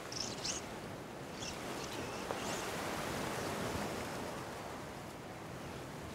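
Sea surf washing on rocks: a steady rushing that swells a little in the middle, with a few short high squeaks in the first three seconds.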